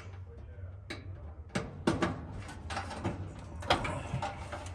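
A few sharp clicks and knocks from tools and metal dryer parts being handled, the loudest about two seconds in and again near the end, over a steady low hum.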